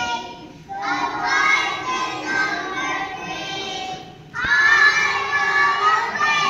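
A group of young children singing together in two long phrases, the second starting about four and a half seconds in.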